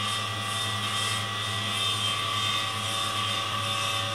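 Electric stand mixer running at a steady speed, its motor giving a low hum with higher steady tones above it as the beater mixes cake batter in a stainless steel bowl.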